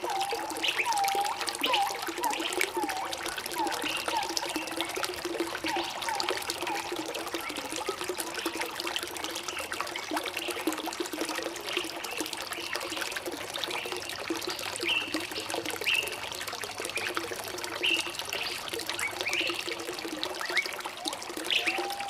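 Small stream of water trickling and gurgling, with many short bubbling blips in the first half, and scattered short high chirps over it.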